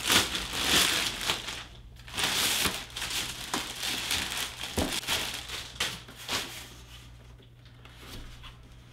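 A large zip-top plastic bag crinkling and rustling as a small 3D printer is worked out of it. It is loudest in the first three seconds, then thins to scattered crackles near the end.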